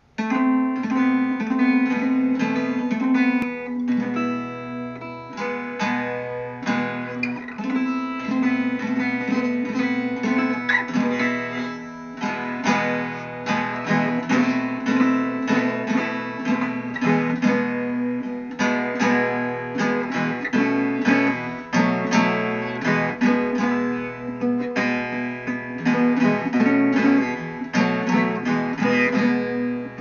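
Background music played on acoustic guitar, plucked and strummed over a steady bass line.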